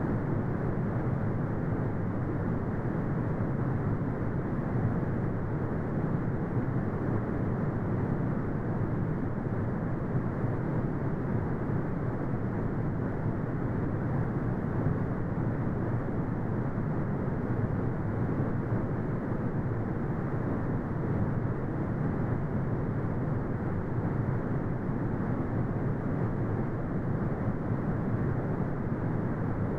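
Steady, unchanging brown noise: a deep rumbling hiss weighted to the low end, with almost nothing above the upper midrange.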